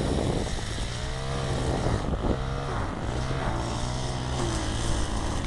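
An engine running steadily, a low hum under heavy wind buffeting on the microphone.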